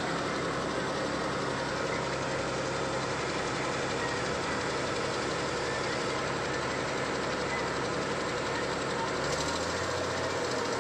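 Heavy construction-vehicle diesel engine running steadily with a low, even note. About nine seconds in, the engine note changes and grows harsher.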